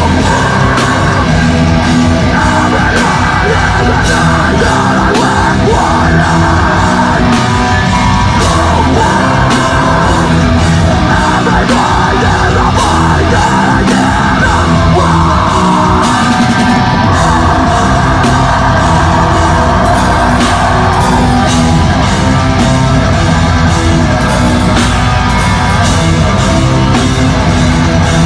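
Deathcore band playing live and loud: distorted electric guitars, bass and drum kit under harsh screamed vocals.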